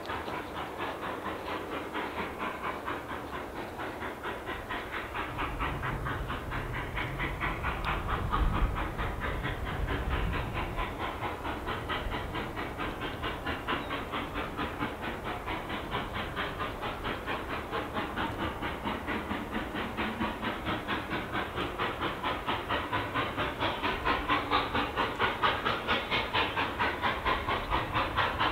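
Durango & Silverton No. 473, a K-28 class 2-8-2 narrow-gauge steam locomotive, chuffing with fast, even exhaust beats and steam hiss, growing louder as it approaches. A low rumble comes up about eight to ten seconds in.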